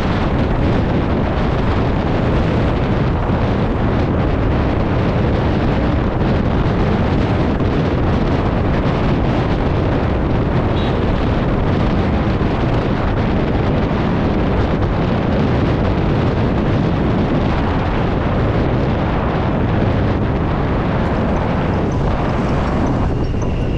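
Steady wind rush on the microphone of a moving scooter, with riding noise underneath.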